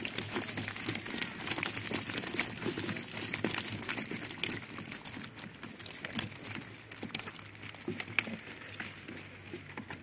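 Wet mesh keepnet full of live roach lifted onto a wooden deck: an irregular patter of small taps, drips and net rustling as water drains out and the fish flap in the mesh.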